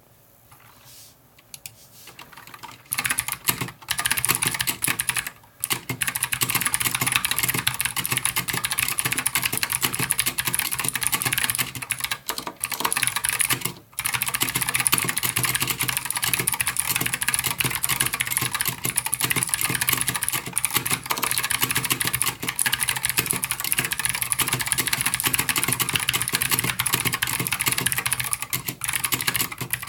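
Fast typing on an Anne Pro 60% mechanical keyboard with clicky Gateron Blue switches: a dense, continuous clatter of key clicks. It begins faintly and becomes full about three seconds in, with brief pauses around five and fourteen seconds in.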